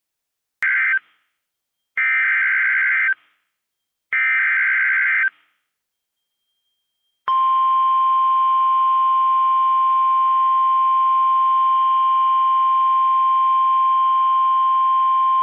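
NOAA Weather Radio Specific Area Message Encoding (SAME) alert header: the tail of one short electronic data burst, then two more, each about a second long with silences between. About seven seconds in, the steady high-pitched Warning Alarm Tone comes on and holds, marking a warning-level alert.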